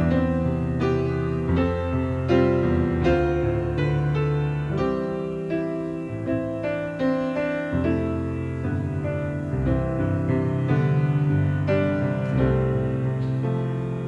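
Instrumental music on a keyboard instrument: chords and melody notes struck about once a second over a held bass line.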